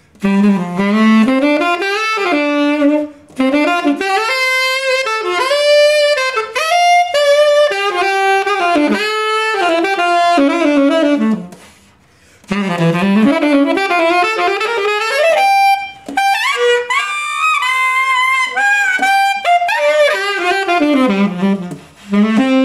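Tenor saxophone played through a Berg Larsen 110/2 SMS mouthpiece: unaccompanied melodic phrases with quick runs and held notes, pausing for a breath about halfway through.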